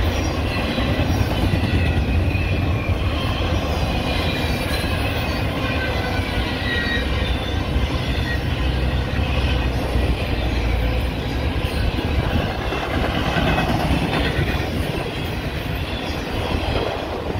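Union Pacific intermodal freight train's double-stack well cars and trailer-carrying spine cars rolling past: a steady rumble of steel wheels on rail, with faint high-pitched wheel squeal running through it.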